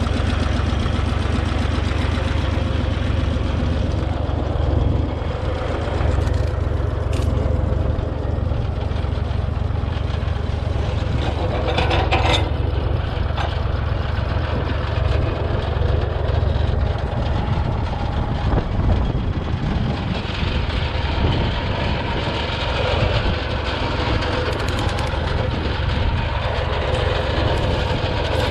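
Tractor engine running steadily, with a short knock about twelve seconds in.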